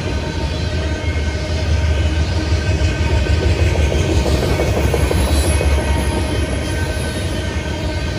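Coal train's hopper cars rolling past: a steady, heavy low rumble of steel wheels on the rails.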